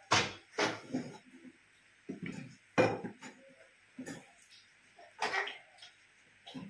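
Scattered short clinks and knocks of pots and kitchen utensils being handled as cooking oil is put in, a dozen or so separate sounds with short pauses between them.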